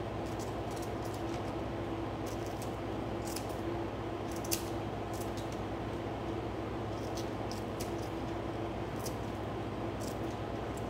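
Kitchen scissors snipping iceberg lettuce leaves: a string of short, crisp snips at irregular intervals, one sharper than the rest about halfway through, over a steady low hum.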